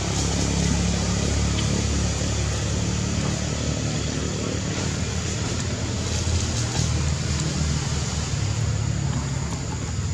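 Steady low rumble with a constant high-pitched hiss above it.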